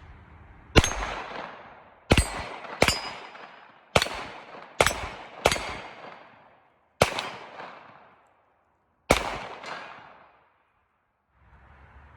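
Eight pistol shots fired at uneven spacing over about nine seconds, each echoing and dying away, a few followed by a faint high ring of steel plate targets being hit.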